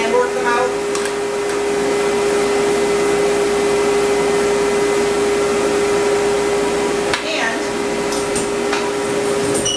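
Grooming stand dryer running steadily for fluff drying, a rush of air over a steady motor hum.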